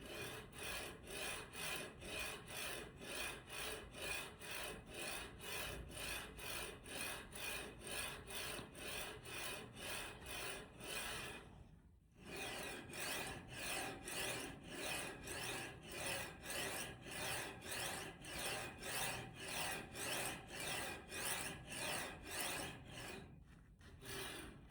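HIWIN HG series linear guide carriage running back and forth along its rail, a rasping rolling noise that swells and fades about twice a second. It stops briefly about halfway through, then starts again.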